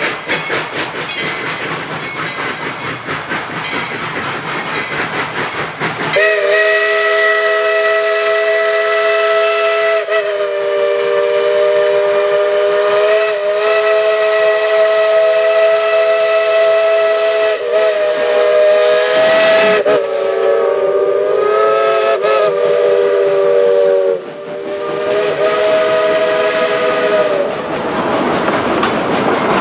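Narrow-gauge steam locomotive working, its exhaust beating in a fast rhythm. Then its chime steam whistle blows several notes at once in one long blast of about twenty seconds, with a few short breaks and wavering pitch, before the chuffing returns near the end.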